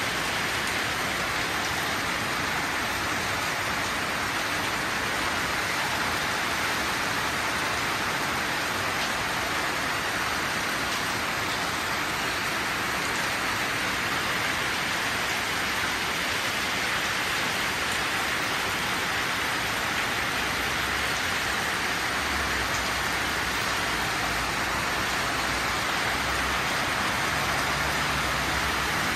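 Steady rain falling on leaves and a wet road, a continuous hiss. A low rumble builds in under it during the last several seconds.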